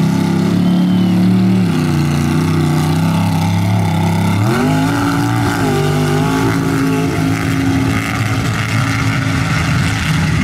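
Mud bog truck's high-horsepower engine running hard under throttle. It dips slightly, then revs up sharply about four and a half seconds in and holds the higher pitch.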